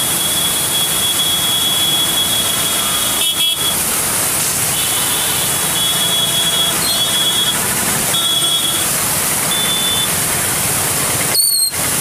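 Fast, turbulent floodwater rushing and churning, a loud steady rush of noise. A high-pitched steady tone sounds on and off over it, and the sound briefly drops out twice, a little over three seconds in and near the end.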